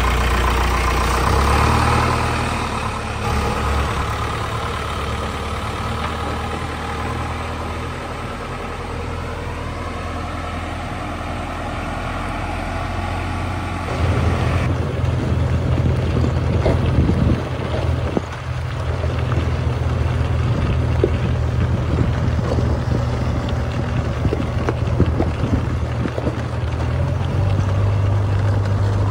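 JCB 3DX backhoe loader's diesel engine running steadily. After a change about halfway through, the engine keeps going under scattered clicks and rattles as the machine drives along.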